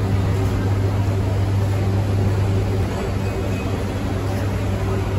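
A steady low machine hum, like a running engine or motor, over a constant noisy background.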